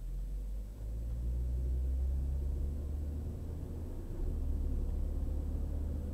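Car driving along a highway: a steady low rumble of engine and road noise, swelling about a second in.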